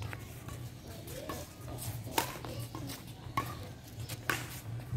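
Badminton rackets striking a shuttlecock in a rally: sharp cracks roughly once a second, the loudest about two seconds in, over a steady low hum.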